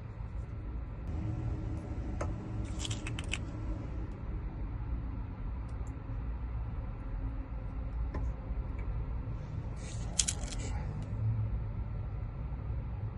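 Small metal lock pins and tools clicking and clinking in two short clusters as pins are loaded into a lock cylinder to rekey it to a key, over a steady low rumble.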